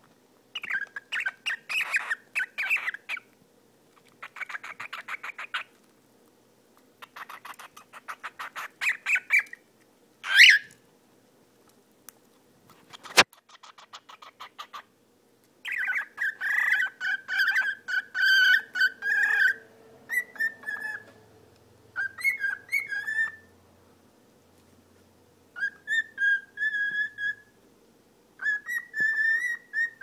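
A cockatiel makes rapid pulsed purring chatter in three bursts, gives a quick rising whistle, then whistles and warbles in short repeated phrases at a fairly steady pitch. There is one sharp click partway through.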